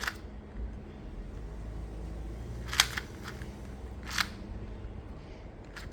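Non-magnetic Monster Go 2x2 plastic speed cube being turned quickly in a solve: soft clicking of the layers, with two sharper clacks about three and four seconds in.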